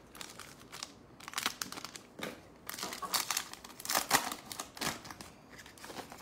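Trading-card pack wrapper crinkling in several short, irregular bursts as it is torn open by hand.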